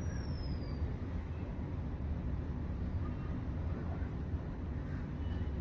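Steady low rumble of outdoor background noise, with a faint high whistle falling in pitch near the start.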